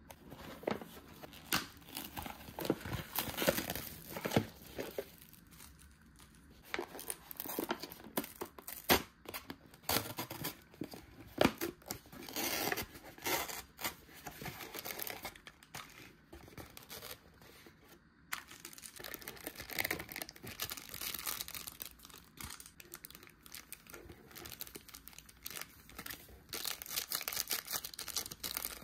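Plastic food packaging being torn open and crinkled by hand: irregular tearing and crackling rustles, packed close together.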